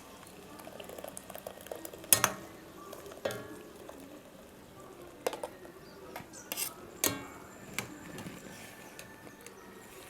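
A spoon stirring ground masala into sautéed mushrooms in a kadai, with scattered scrapes and clinks of metal on the pan. The loudest clinks come about two seconds in and again around seven seconds.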